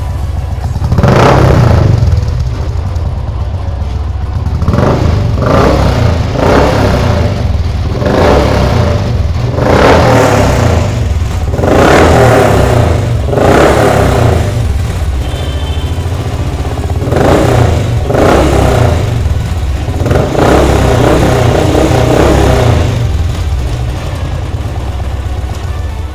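Royal Enfield Thunderbird's single-cylinder engine running at a steady thumping idle, its throttle blipped over and over in short revs, with a longer rev near the end.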